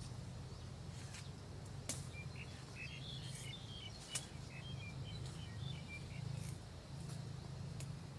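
A bird chirps a quick run of short notes for about two seconds near the middle, over a steady low hum. Two sharp clicks stand out, the louder one about four seconds in.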